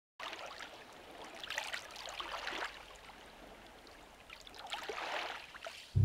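Shallow water washing and trickling among shoreline rocks, with small splashes, swelling up twice as small waves come in.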